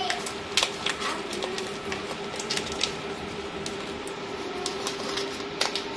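Paper rustling and crinkling in sharp, scattered bursts as a paper wrapper is folded around an egg roll, over a steady hum.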